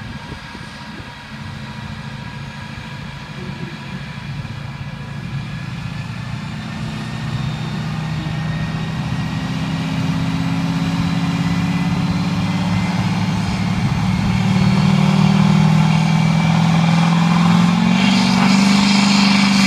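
2004.5 Chevrolet Duramax LLY 6.6-litre V8 turbodiesel, with intake and turbo-back exhaust, pulling under load on a chassis dyno. Its engine note climbs slowly in pitch and grows steadily louder. A hissing rush joins in about two seconds before the end, at the loudest part of the pull.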